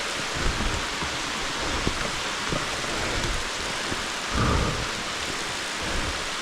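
Steady hiss of heavy rain, with irregular low rumbles and thumps; the loudest comes about four and a half seconds in.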